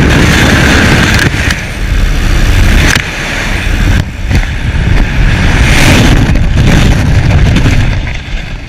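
Wind rushing and buffeting over an action camera's microphone in skydiving freefall just after leaving the aircraft. The sound is loud and churning, heaviest at the bottom.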